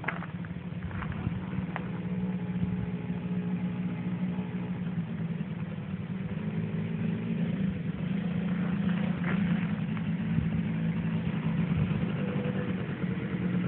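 Small engine of a child's youth quad (ATV) running steadily at low speed, growing gradually louder as it comes closer.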